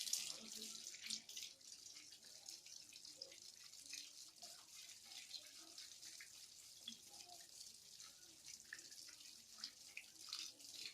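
Water running from a tap into a sink, a steady hiss broken by small splashes as hands are washed under the stream.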